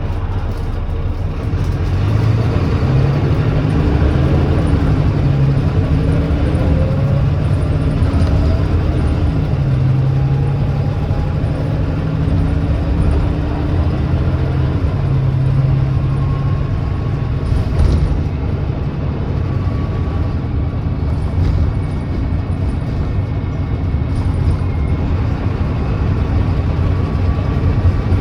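Volvo B9TL bus's 9.3-litre Volvo D9B diesel accelerating hard under kickdown, the ZF Ecolife automatic gearbox upshifting through the gears: the engine note climbs, drops back at each shift and climbs again, then settles into a slow steady rise with a gearbox whine in a higher gear. The engine runs with an exhaust leak.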